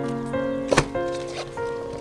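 Background music of held notes that change pitch step by step, with one sharp knock under a second in.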